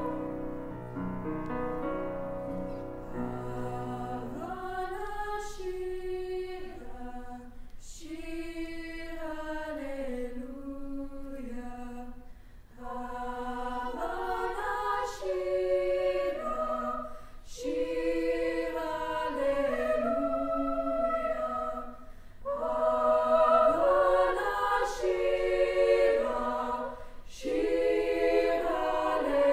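Treble choir of girls' voices singing, led by solo voices at microphones, in phrases a few seconds long with brief breaks between them, growing louder in the last quarter.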